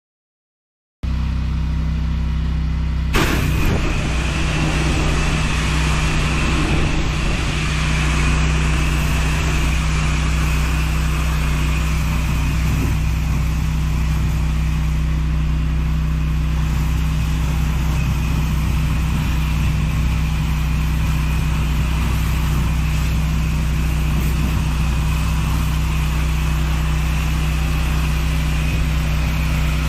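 Pressure washer running steadily: a constant engine hum under the hiss of high-pressure water spraying onto patio paving, starting suddenly about a second in, with one sharp knock shortly after.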